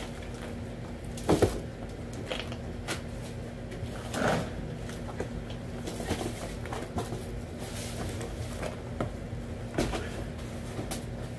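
Large cardboard wheel boxes being lifted, shifted and set down on a stack: a few bumps and scrapes of cardboard, the loudest about a second in, about four seconds in and near the end, over a faint steady hum.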